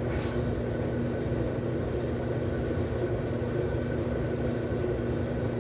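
Top-load washing machine running with a steady mechanical hum, one constant tone over a low rumble.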